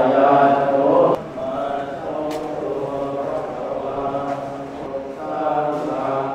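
Buddhist chanting: voices holding long, drawn-out notes in a steady drone. It drops suddenly in loudness about a second in, then carries on more quietly.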